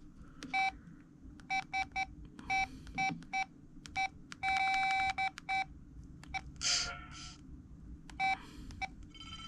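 LG VM101 phone's keypad tones: short beeps at uneven intervals as keys are pressed to move through the menus, one key held for under a second near the middle. A brief, noisier sound comes about seven seconds in.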